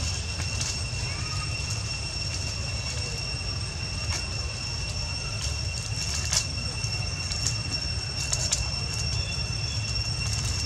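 Steady high-pitched insect drone, one unbroken whine, over a low rumble, with a few faint clicks scattered through.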